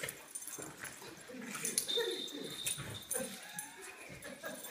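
Puppies whimpering and yipping as they play, with one thin high whine held for about a second near the middle.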